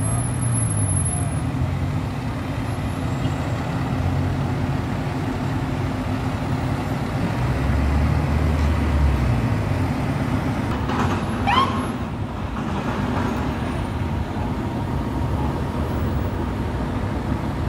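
Street traffic with a heavy fire rescue truck's diesel engine running as it drives past, loudest about eight seconds in. A brief high squeal comes about eleven seconds in.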